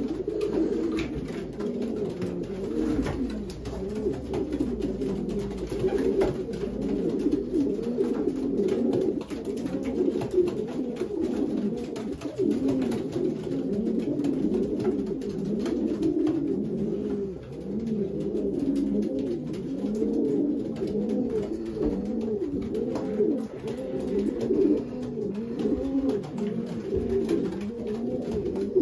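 Many racing pigeon cocks cooing in their loft nest boxes, a dense chorus of low overlapping coos with scattered light clicks. The cocks are stirred up at being shown their hens.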